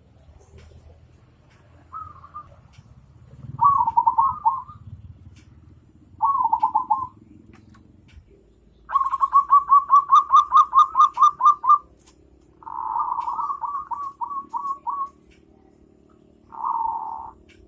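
A bird calling in about six short phrases, each pitched around the same middle note. The longest, near the middle, is a quick run of about a dozen evenly spaced notes lasting some three seconds.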